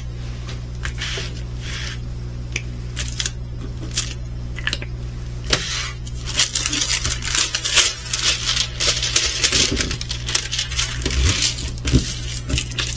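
Crinkling plastic packaging and clicking, rattling little bags of resin diamond-painting drills being handled, growing busier about halfway through, over a steady low electrical hum.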